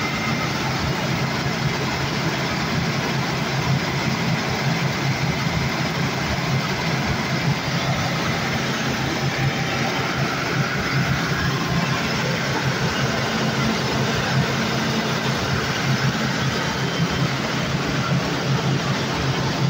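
Engine of a blue machine running at a steady speed, a constant low hum with no change in pitch.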